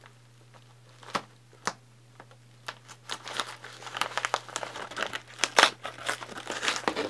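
Kraft-paper mailer being handled and opened by hand. Two light clicks come first, then from about three seconds in a dense run of paper crinkling and rustling.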